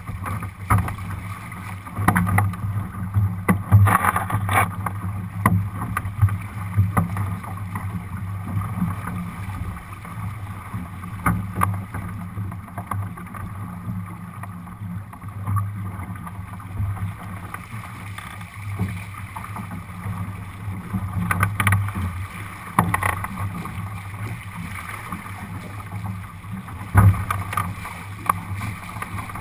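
Water rushing and splashing along the hull of a Lightning sailboat sailing upwind, with wind buffeting the microphone. Every few seconds a wave slaps sharply against the hull.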